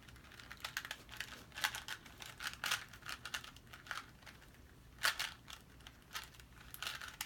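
Plastic Rubik's cube clicking and clacking as it is twisted by hand, an irregular run of short sharp clicks with a few louder clacks.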